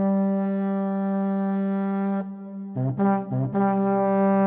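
Brass music: a long held note, a break about two seconds in, then two short notes and another long held note.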